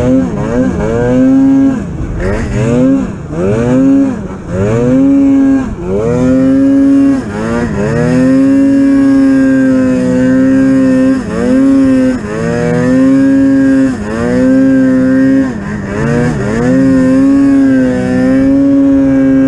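Polaris Pro RMK 800 snowmobile's two-stroke twin engine revving hard over and over: the pitch climbs quickly, holds at high revs for a second to a few seconds, then drops briefly as the throttle is eased before climbing again.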